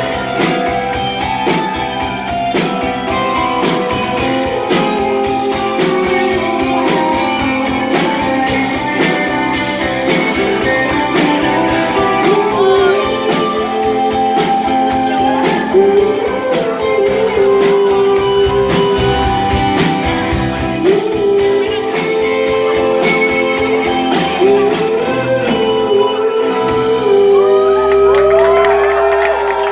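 Live band performing: a male singer with a strummed acoustic guitar over drums keeping a steady beat, in a large hall. About three seconds before the end the beat and the low end drop out, leaving held notes.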